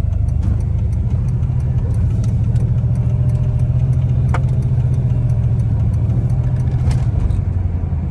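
2007 Dodge SRT8's 6.1-litre Hemi V8 running at a steady, moderate engine speed while driving, easing off a little near the end.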